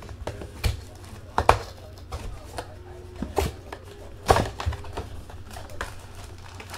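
Irregular clicks, taps and scrapes of a cardboard trading-card box and cards being handled as the box is opened, the sharpest knocks about one and a half and four seconds in, over a steady low hum.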